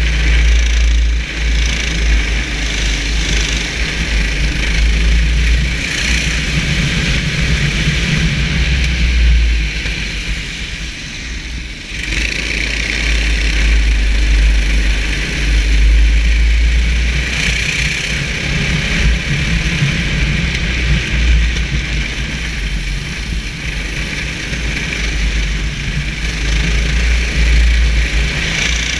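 Onboard sound of a racing kart's engine running at speed, with heavy wind buffeting on the microphone. The sound eases for a couple of seconds about ten seconds in, then builds up again.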